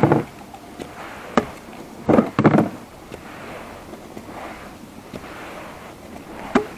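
Sharp knocks and clunks on a pedal-drive fishing kayak: one at the start, another about a second and a half in, a loud cluster of several around two seconds in, and a last one near the end, over a steady low background noise.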